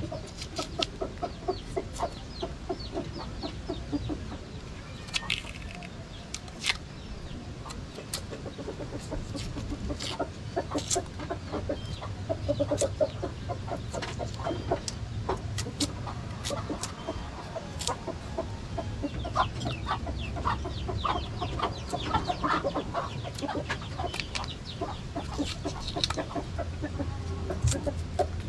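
Chickens clucking on and off, mixed with sharp clicks and scrapes of a bolo knife cutting and peeling cassava roots.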